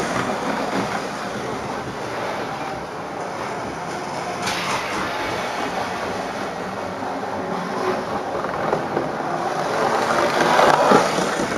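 Model Pendolino train running fast round the layout's oval: a steady motor whir and wheels rattling over the track joints, growing louder about ten seconds in as it comes round close to the microphone.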